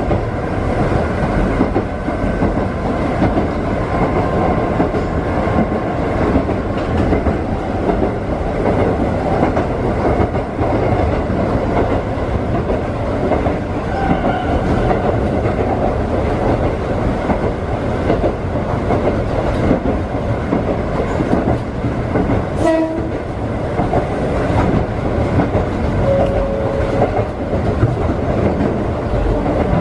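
Konan Railway electric train running at speed, heard from the driver's cab: a steady rumble of wheels and motors with clickety-clack over the rail joints. Near the end a sharp click and a couple of brief tones stand out over the running noise.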